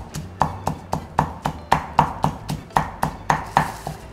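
Stone mortar and pestle pounding dried roasted chilies with salt, an even beat of about four strikes a second that stops near the end.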